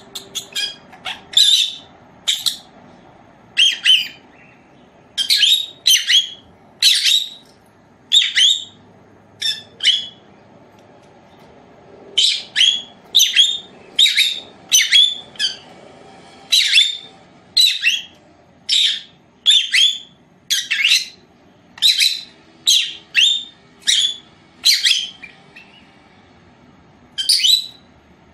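Caged lovebird calling: a long run of short, shrill chirps and squawks, one or two a second, broken by two pauses of a couple of seconds.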